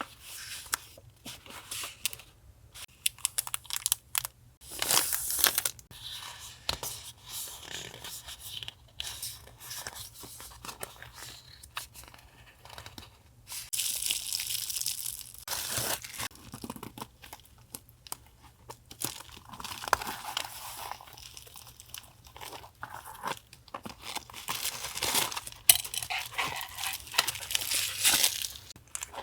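Close-up rustling, tearing and crinkling of paper and plastic gift packaging, in irregular bursts with scattered small taps and clicks.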